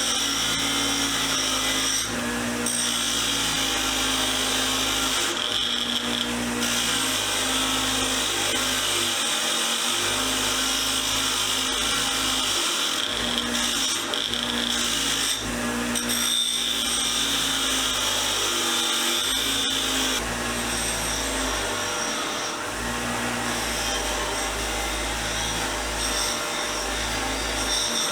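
Power wire wheel spinning steadily, with a scratchy hiss that comes and goes every few seconds as a steel screwdriver blade is pressed against it and lifted off, brushing away rust loosened by the rust remover.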